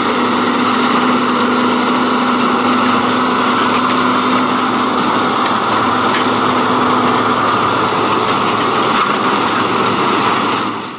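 Agcostar 8360 tractor's Cummins 14-litre diesel engine running steadily under load while pulling a 42-foot Salford vertical tillage tool through the field. The sound fades out near the end.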